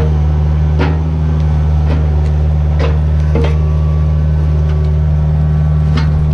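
Heavy machine engine running steadily at a low pitch, with scattered sharp knocks and cracks of wood being handled or broken.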